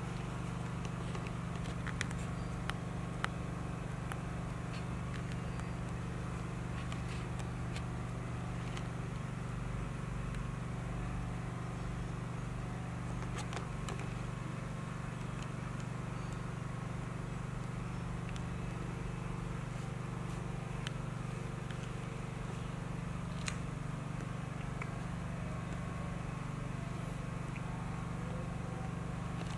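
A steady low machine hum, with a few faint light clicks scattered through it.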